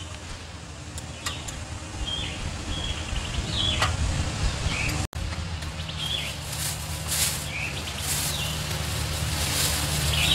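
Small birds chirping at intervals over a steady low rumble. In the second half, plastic crinkles and rustles in short bursts as a plastic bag and a wrapped package are handled.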